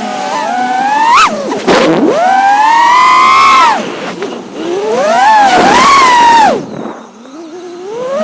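The brushless motors of a 5-inch FPV quadcopter whining, their pitch swooping up and down with sharp throttle changes. Near the end they drop away almost to quiet for a moment, then rise again.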